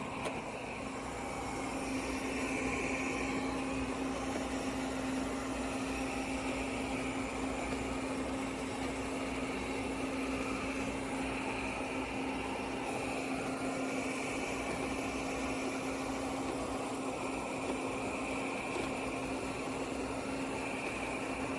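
Airzeen R7 robot vacuum cleaner running: a steady motor hum with the rush of its suction fan, unchanging throughout.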